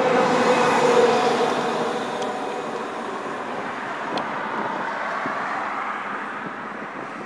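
Steady engine and road noise inside a moving vehicle's cabin, slowly growing quieter.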